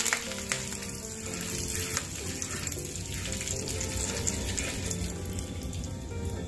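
Cumin seeds and curry leaves sizzling steadily in hot ghee in a nonstick pan, with a few spatula clicks against the pan near the start.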